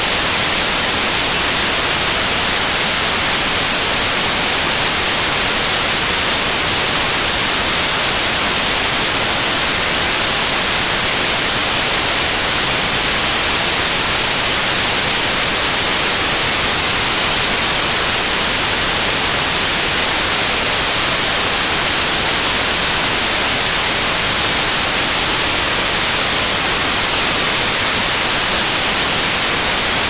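White noise test signal: a steady, even hiss with no change in level.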